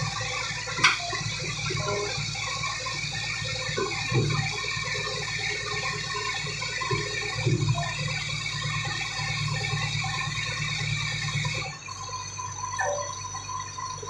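Heavy diesel machinery running steadily as a bulldozer is loaded onto a self-loader truck, a constant rumble with a sharp click and a few knocks. The sound changes abruptly near the end.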